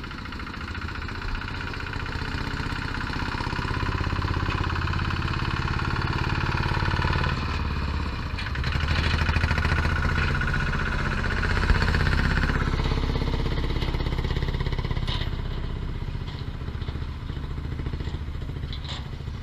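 A Thai e-taen farm truck's exposed engine running as the truck drives off the ferry ramp and across the sand. The engine grows louder, is loudest about halfway through as the truck passes close, then fades.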